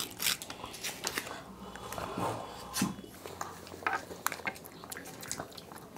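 People quietly eating ice cream: scattered soft clicks and crinkles of plastic wrappers and small mouth sounds.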